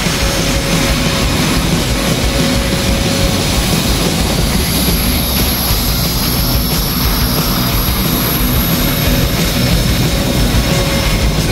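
Twin General Electric F414 turbofans of a US Navy F/A-18F Super Hornet running at taxi power as the jet rolls past and away: a steady, loud jet noise with a deep rumble and a high thin whine that comes up about halfway through.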